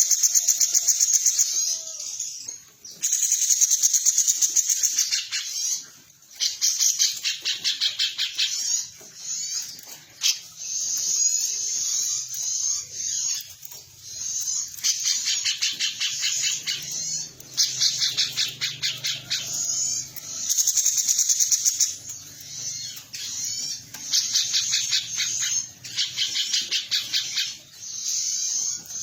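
Female cucak cungkok singing in its "nembak" style: repeated bursts of very fast, high trilling, each a second or two long, with short pauses between them.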